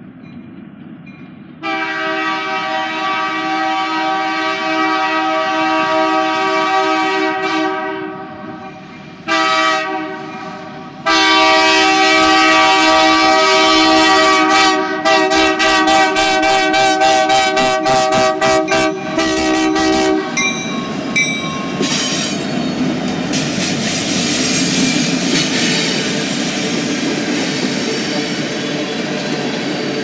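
Freight locomotive air horn sounding a chord. It plays a long blast from about two seconds in, a short blast, then another long blast that breaks into rapid stuttering toots before stopping about two-thirds of the way through. After that the empty coal hopper cars roll past, their wheels rumbling and clacking on the rails.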